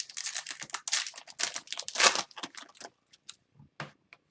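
A hockey card pack's wrapper being torn open and crinkled, a dense crackling for about three seconds, then a few light clicks near the end.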